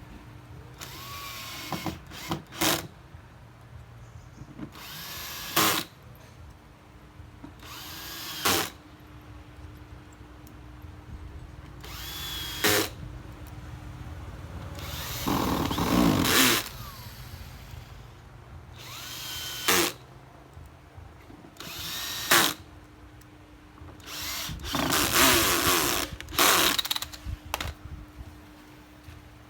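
Handheld electric drill run in short bursts every few seconds, each one winding up in pitch as it starts; a few runs last longer.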